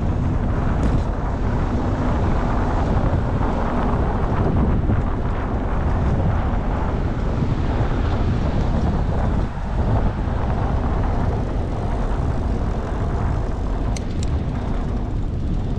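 Steady wind rush buffeting the microphone of a camera riding along on a bicycle, mixed with the noise of car traffic in the lane alongside. The wind eases briefly about halfway through.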